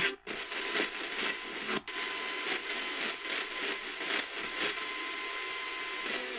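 FM radio static hissing from the Tiemahun FS-089's speaker as the tuning knob is turned between stations. It cuts out briefly near the start and about two seconds in, and a faint steady tone sits under it from about a second in.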